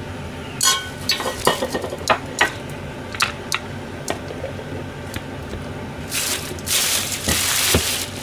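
Kitchen handling sounds: a scattered run of light clicks and knocks as a knife and plastic containers are set down and moved on the counter and cutting board. Near the end comes about two seconds of steady hissing noise.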